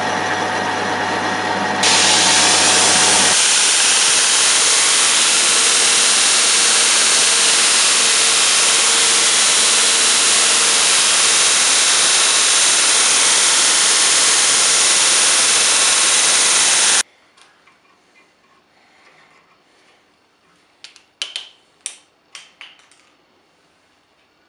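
A drill press bores into a flat steel bar for a couple of seconds. Then a belt grinder runs with a thin steel rod held against the belt, a loud, steady grinding hiss that stops abruptly. After it come a few sharp metallic clicks of hand tools being handled.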